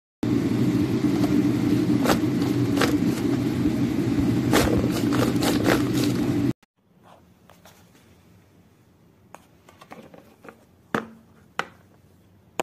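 A loud, steady low noise with scattered clicks for about six seconds, which cuts off suddenly; then a run of sharp, separate plastic clicks and taps from a hand-pressed mini garlic chopper.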